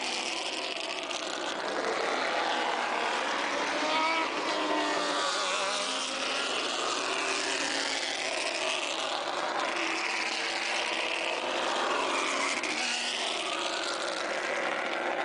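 Race car engines running on the circuit, a steady wash of engine noise whose pitch swells and falls as cars pass, with spectators' voices mixed in.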